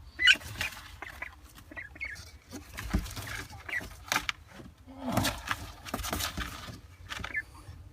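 Young Indian Runner ducklings calling: scattered short high peeps and a lower call about five seconds in, from growing ducklings whose voices are starting to change. Short clicks and rustles of their movement run through it.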